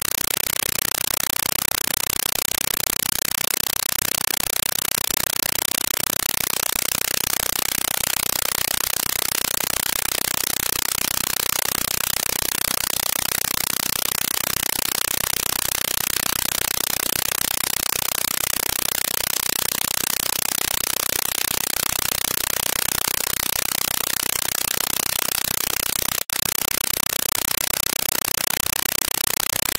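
Steady hiss like static, unchanging in level, with one very brief break about 26 seconds in.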